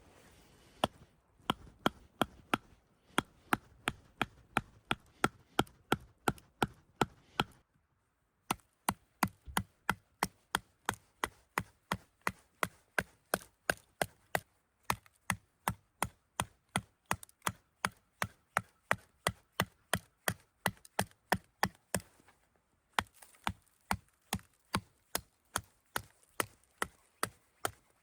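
Knife chopping on a cutting board in a fast, even rhythm of about three sharp strokes a second, stopping briefly twice.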